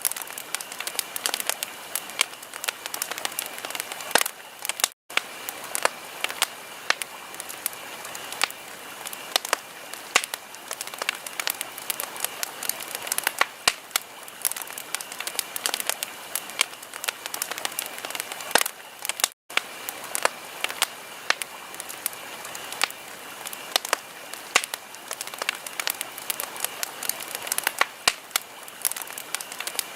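Wood fire crackling steadily, with many sharp pops and snaps over a soft hiss. The sound cuts out for an instant twice.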